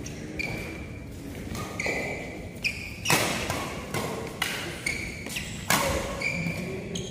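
Badminton rally: several sharp racket strikes on the shuttlecock, the loudest about three seconds in and again near six seconds, mixed with short high squeaks of shoes on the court floor.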